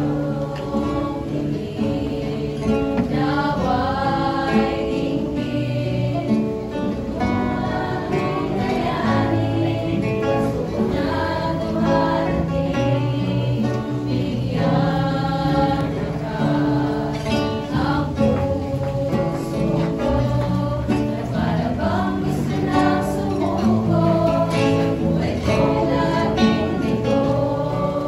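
Mixed youth choir singing a Tagalog worship song with instrumental accompaniment, moving into the song's bridge partway through.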